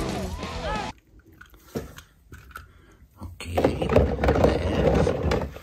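A hand sloshing and swishing through soapy, foamy water in a plastic tub, with the crackle of bubbles; it is loudest in the last two seconds. Before that come a few small clicks and splashes, and in the first second film music runs on briefly before it cuts off.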